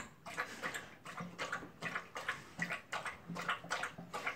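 Dog lapping water from the bowl of a gravity-fed pet water dispenser, a steady rhythm of wet laps about three a second.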